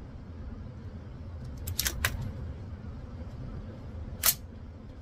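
Sharp metallic clicks from an AR-15's action being worked by hand, consistent with the rifle not cycling unsuppressed: a quick cluster of clicks about two seconds in and a single louder click near the end, over a steady low background rumble.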